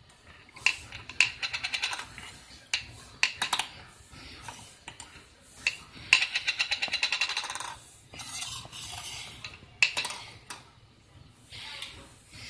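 A plastic cap clattering and rattling on a hard tabletop as a green-cheeked conure pecks at it, picks it up and drops it. It comes in several bursts of rapid clicks; the longest, about six seconds in, lasts over a second.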